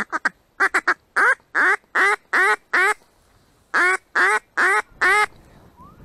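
A duck quacking loudly in a long series of about a dozen short, nasal quacks, delivered in quick runs with a short pause around three seconds in, then stopping a little after five seconds.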